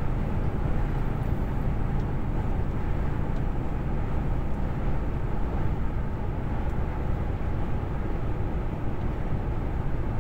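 Heavy truck driving at motorway speed, heard inside the cab: steady engine and road noise, mostly low-pitched, with no change through the stretch.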